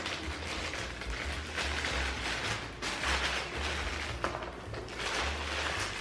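Clear plastic packaging bag crinkling and rustling as a vacuum brush head is pulled out of it, with a few light handling knocks.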